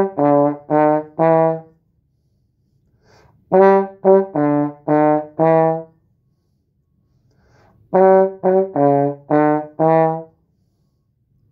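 Tenor trombone playing a five-note phrase, G, G, D, D-sharp, E: two repeated notes, then a drop and a step up by semitones. The end of one pass is heard, then the phrase twice more in full, with a pause of about two seconds between passes.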